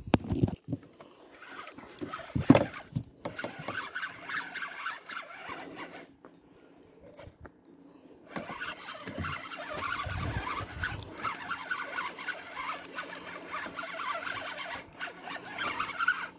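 Spinning reel being cranked to retrieve line, stopping for about two seconds midway and then cranking steadily again, with a sharp knock about two and a half seconds in.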